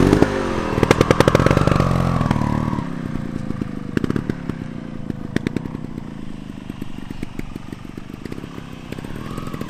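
A 300cc two-stroke single-cylinder trials bike revving up loudly as it pulls away. It then runs on steadily and more quietly as it moves off, and revs up again near the end.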